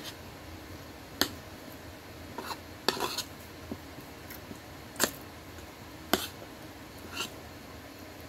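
Metal spoon clinking and scraping against a plate while scooping up food, about seven sharp clinks a second or so apart.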